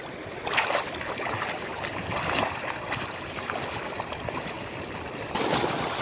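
Sea water splashing and sloshing as a swimmer breaststrokes away from a camera held at the water's surface, water lapping against the microphone. About five seconds in it changes to small waves washing up on a sandy shore.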